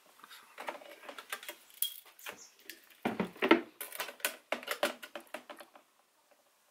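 Steel tape measure and pencil handled against a thin plastic storage box: an irregular run of small clicks, taps and scrapes as the tape blade is pulled and laid over the box rim. The run is densest and loudest about three seconds in and stops shortly before the end.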